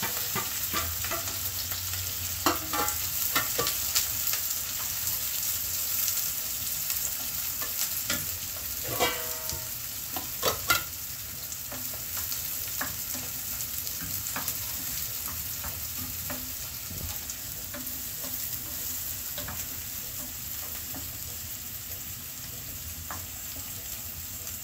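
Sliced onion and capsicum sizzling steadily in hot oil in a frying pan, stirred with a spatula that knocks and scrapes against the pan now and then. The oil has already been tempered with mustard seeds, so this is the onions starting to fry.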